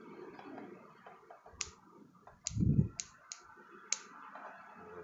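Pruning scissors snipping twigs on an anting putri (Wrightia religiosa) bonsai: about five short, sharp clicks spread through the middle of the clip. A dull, low thump about halfway through is the loudest sound.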